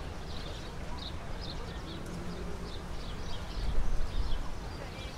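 Outdoor ambience of small birds chirping in quick short calls, over a low rumble that swells about three and a half seconds in.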